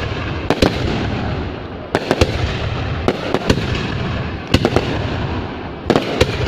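Fireworks going off: a continuous rumble of many bursts, with sharp bangs cracking through every second or so, several in quick clusters of two or three.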